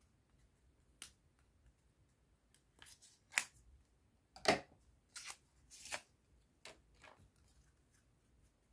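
A stack of trading cards and its packaging handled by hand: a string of short crinkles, taps and clicks, the loudest about four and a half seconds in.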